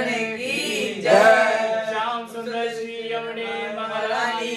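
Men singing a devotional chant, the voices holding and bending long notes over a steady held tone beneath.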